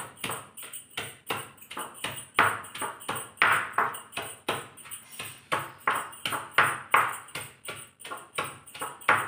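Stone pestle pounding soaked red chillies and coriander leaves in a heavy stone mortar: a steady train of sharp knocks, about three strokes a second.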